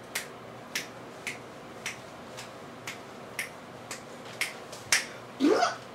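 Sharp clicks repeating evenly, about two a second, followed near the end by a short cry that rises in pitch.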